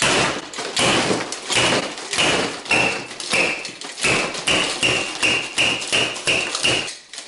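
Plastic toy hammer pounding chocolate pieces on a table over and over, about two blows a second, each with a short high note.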